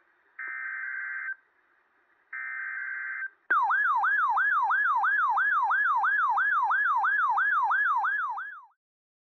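RadioShack NOAA weather radio sounding its alert for a new warning: two long steady beeps, then a loud, rapidly repeating falling siren tone at about three sweeps a second that cuts off suddenly near the end.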